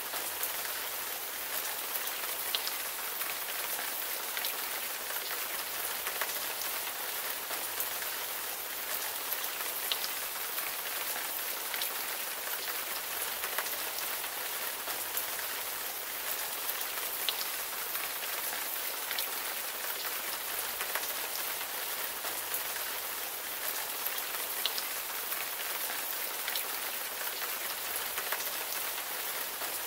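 Steady rain falling: an even hiss with scattered individual drop ticks.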